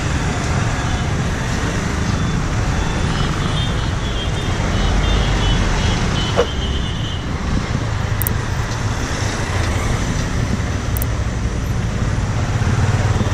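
Motorcycle engine running at low speed in dense city traffic, with other motorcycles and cars around it. A few brief high tones sound around the middle, and a short falling squeal comes about six seconds in.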